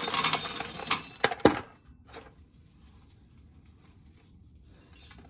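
A rapid clatter of small clicks and clinks, with a few sharper knocks around a second in, stopping about two seconds in; after that only faint room noise.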